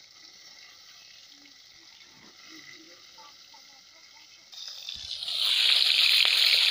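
Fish pieces frying in hot oil in an iron kadai: a faint sizzle at first, then a loud hissing sizzle that swells about five seconds in as the fish goes into the oil.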